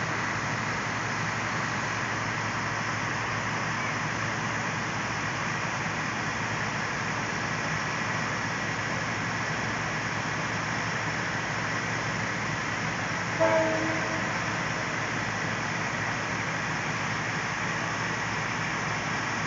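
Several antique fire engines running their engines hard to drive their pumps, a steady drone mixed with the hiss of water streams spraying from their deck guns. A brief louder pitched sound breaks in about two-thirds of the way through.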